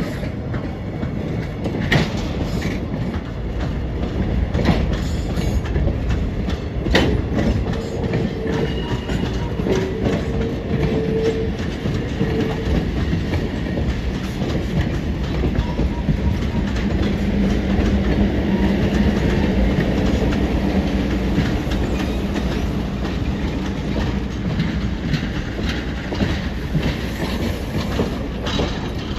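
Train of cabooses and passenger cars rolling past, steel wheels clicking over the rail joints in an irregular clickety-clack over a steady rumble.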